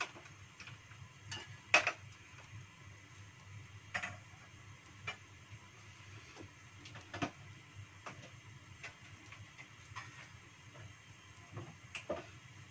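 Oil heating in a pan on a gas stove, with scattered short ticks and clicks every second or so over a low steady hum.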